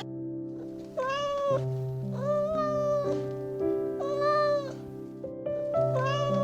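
Cat meowing four times, each meow about half a second to a second long and roughly a second and a half apart, over soft background music with long held notes.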